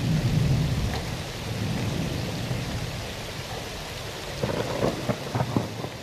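Steady rain with rolling thunder, the low rumble heaviest in the first two seconds, then a few sharp cracks of thunder about four and a half to five and a half seconds in.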